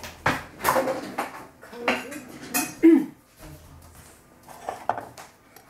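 Kitchen dishes and cutlery being handled: a run of sharp clinks and knocks in the first three seconds, then a few more near the end.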